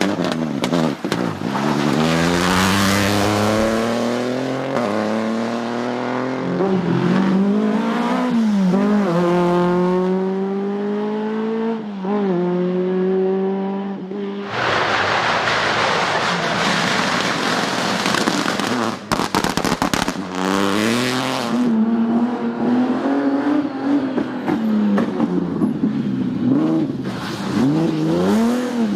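Rally car engines revving hard through the gears, the pitch climbing and then dropping at each upshift, several times over. About halfway through there is a stretch of rushing noise, followed a few seconds later by a handful of sharp cracks.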